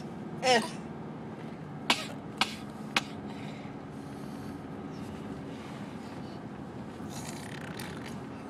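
Fake coughing: a short cough-like sound falling in pitch about half a second in, then three quick, sharp coughs about two to three seconds in, then quiet.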